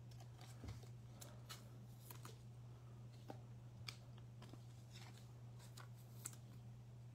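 Faint handling of trading cards: a few soft, scattered ticks and slides of card stock over a steady low hum.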